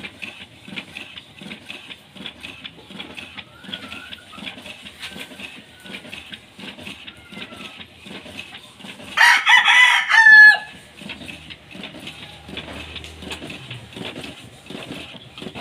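Epson L360 inkjet printer printing a page, its print head shuttling in a steady repeating rhythm. About nine seconds in, a rooster crows once, loudly.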